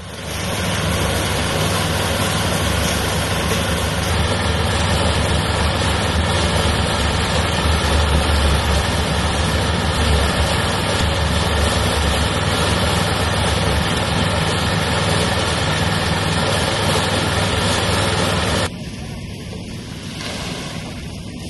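Portable concrete mixer running: its small engine drones steadily while the drum turns with wet concrete, which is tipped out of the drum partway through. Near the end the sound drops suddenly to a much quieter background.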